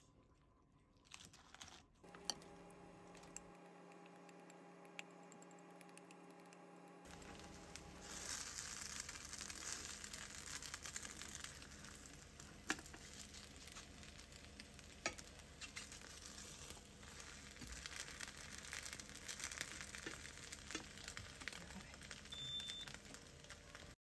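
Cabbage okonomiyaki batter sizzling quietly in a nonstick frying pan, with a few light clicks and taps from a spatula. Before the sizzling starts, about eight seconds in, there is a faint steady hum.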